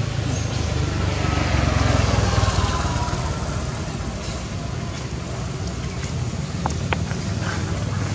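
Steady low engine rumble of a motor vehicle, with a whine that falls in pitch between about one and three seconds in. A few light clicks near the end.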